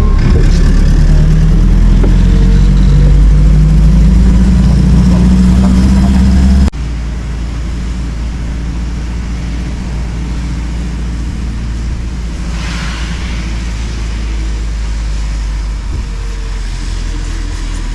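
Motor vehicle running with steady engine and road rumble. About seven seconds in, the sound cuts abruptly to a quieter, steady rumble.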